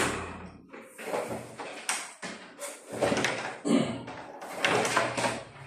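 Electrical wire pulled hand over hand and stretched out at arm's length, its plastic insulation swishing and scraping in a series of strokes about once a second.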